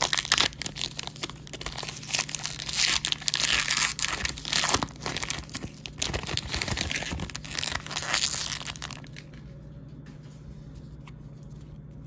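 Wax-paper-style trading-card pack wrapper being torn open and crinkled by hand, a dense crackling that stops about nine seconds in, leaving only a low steady hum.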